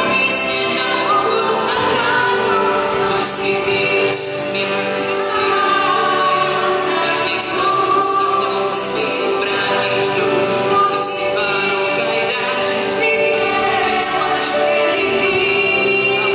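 A small mixed choir of male and female voices sings a slow worship song into microphones, with lead voices over held harmony and a band accompaniment that includes electric bass guitar.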